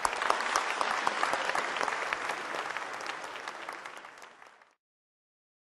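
Audience applauding, dense clapping that eases off slightly and then cuts off abruptly about four and a half seconds in.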